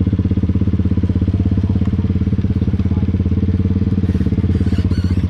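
Honda Rancher 420 ATV's single-cylinder engine running steadily, close up, with a rapid even pulse and no revving.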